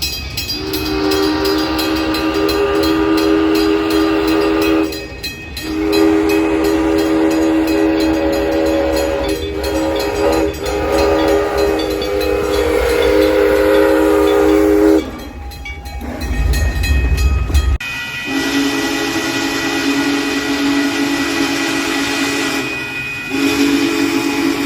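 Train horn sounding long blasts, each a chord of several steady tones held for several seconds. Between the second and third blasts there is a brief low rumble of the train, and the later blasts sound a lower chord.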